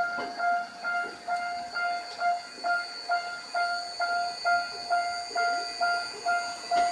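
Japanese railway level-crossing warning bell ringing in an even, repeating clang, about two rings a second, with a steady high whine running underneath.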